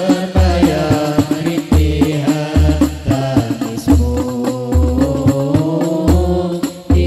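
Modern rebana ensemble music: a sustained, wavering melody and group chant-like singing over deep frame-drum beats that land roughly once a second.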